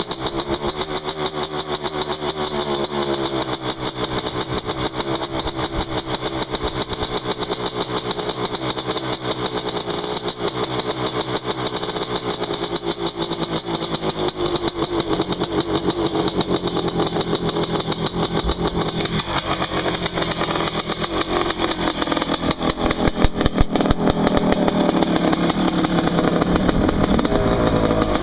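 1983 Honda CR250's two-stroke single-cylinder engine running on a cold start after sitting unused for a week and a half, its revs wavering up and down, and running louder over the last several seconds.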